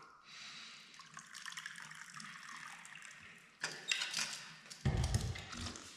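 Water being poured into a cup or bottle for a drink, a steady pouring hiss, followed near the end by a few louder knocks and a low, heavy sound.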